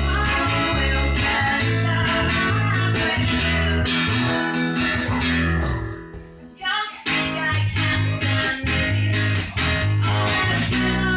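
Live band music with guitars and a bass guitar playing a rhythmic figure. The band drops away about halfway through, then comes back in full about seven seconds in.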